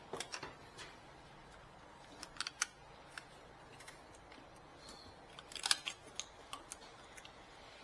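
Scattered sharp plastic clicks and taps from handling and fitting the parts of an inkjet printer's continuous ink supply kit, with a louder cluster of clicks about two-thirds of the way through.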